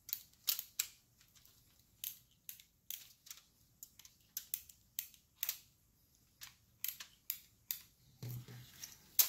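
Marinade injector syringe being worked into a raw brisket: irregular short sharp clicks and wet ticks, two or three a second, with a louder click near the end.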